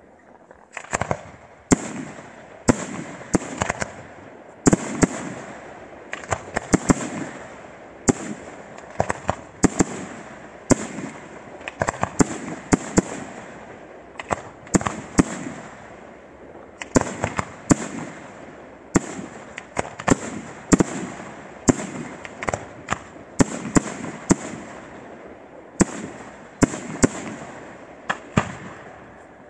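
Fireworks display: a rapid run of aerial shell bursts, sharp bangs coming about one or two a second, each followed by echo.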